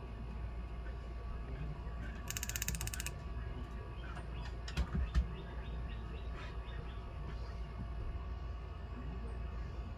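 Bench work over a steady low hum: a fast, even train of clicks lasting about a second, then a couple of short low thumps near the middle.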